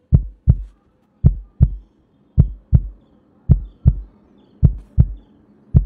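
Recorded human heartbeat: a steady lub-dub, each beat a pair of short deep thumps about a third of a second apart, a little under one beat a second. The first sound (lub) comes from the closing of the bicuspid and tricuspid valves, the second (dub) from the closing of the semilunar valves.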